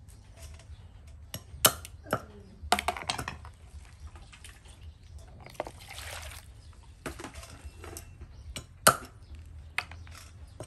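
Cleaver knocking on a wooden chopping block, a handful of irregular sharp strikes. About six seconds in, water is poured from a plastic dipper into a plastic basin.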